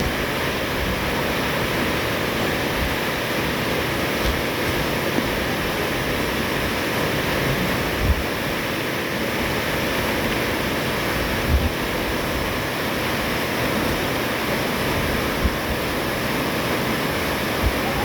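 Waterfall rushing steadily, with a few brief low thumps along the way.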